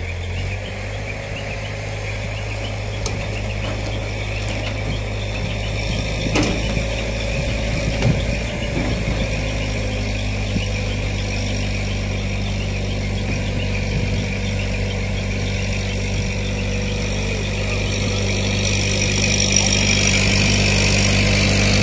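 Diesel engine of an ACE Hydra crane running steadily under load as the crane pulls an overturned dump truck upright. It grows gradually louder toward the end.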